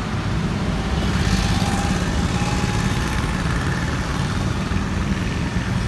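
A small engine running steadily nearby, a low even drone with street traffic noise around it.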